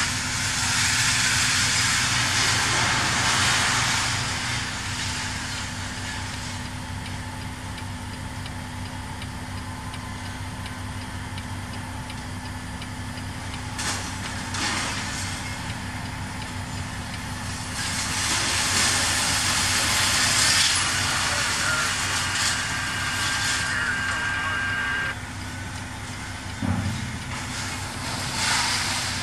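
Diesel truck engine idling steadily, heard from inside the cab, while heavy scrap-yard work outside swells into a loud rushing clatter twice: at the start and again for several seconds later on, with a single knock in between.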